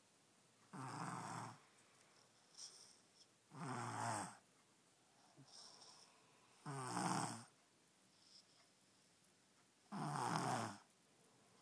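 A baby snoring in her sleep: four loud snores, each under a second long and about three seconds apart, with fainter breaths between them.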